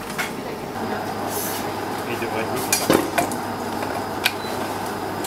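Kitchen clatter of metal utensils and pans: a few sharp clinks and knocks over a steady background hum.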